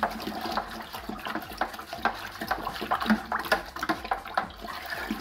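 Honey and water being stirred vigorously with a plastic spoon in a plastic fermenting bucket, the liquid sloshing and splashing in quick, irregular strokes. The stirring mixes and aerates the mead must so the yeast has oxygen.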